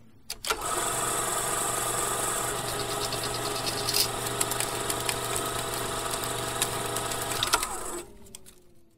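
A motor-like mechanical sound: a few clicks, then steady running with a rattle for about seven seconds, which cuts off and trails away in a falling whine.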